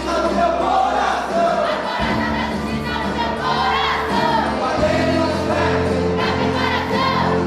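Gospel worship song performed live: voices and a crowd singing together over a band, with held bass notes that change every two to three seconds.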